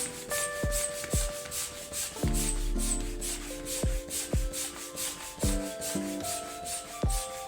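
Background music with a steady beat: held synth notes changing in steps over a kick drum and quick high ticks.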